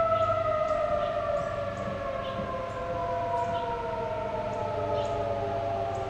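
Federal Signal 2001-AC outdoor warning siren, its single tone sliding slowly and steadily down in pitch as it winds down at the end of a test.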